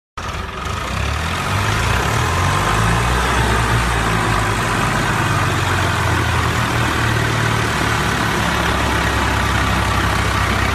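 Diesel tractor engines running hard under load in a tug-of-war, their tyres digging into the dirt. A steady low engine drone with a broad rushing noise over it.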